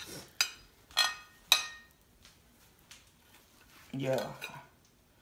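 Metal spatula and knife clinking against a ceramic plate while cutting a chicken nugget: four sharp ringing clinks in the first second and a half. A short burst of a voice about four seconds in.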